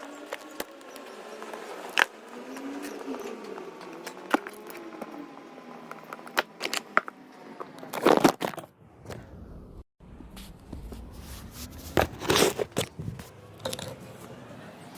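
Workshop handling noises: scattered clicks, knocks and scraping of tools and metal parts, with bursts of louder knocking about eight and twelve seconds in.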